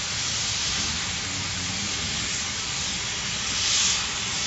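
CNC profile cutting machine's torch cutting through steel plate: a steady hiss that swells louder and brighter for a moment near the end.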